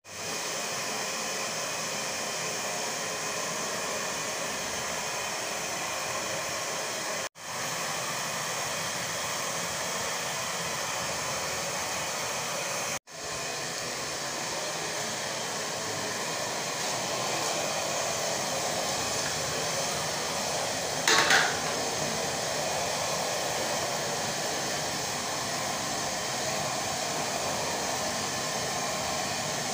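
Steady hiss of a gas stove burner's flame, cutting out for an instant twice in the first half, with one short, sharp clank about two-thirds of the way through.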